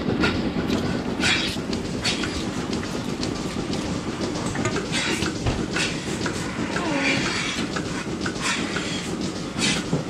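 Rotary milking parlour machinery running: a steady rumble from the turning platform and milking equipment, with several short hisses of air as teat cups go on.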